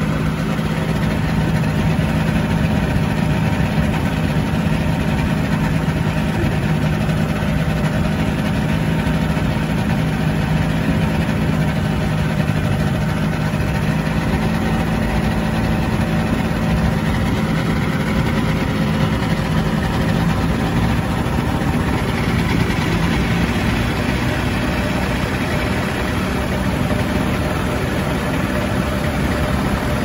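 Microlight trike's engine idling steadily, heard from the pilot's seat, with a constant low hum that stays even throughout.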